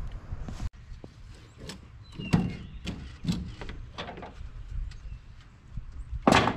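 A series of irregular knocks and thuds, about five spread over a few seconds, with one louder knock near the end.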